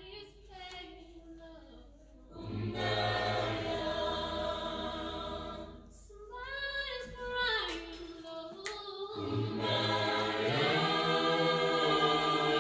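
A choir singing a hymn a cappella, in long held phrases with short breaks between them; it is fainter in the first two seconds.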